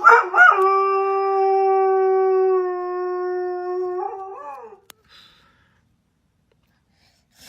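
A dog howling: a few short yelps, then one long steady howl of about three seconds that wavers and falls away at the end.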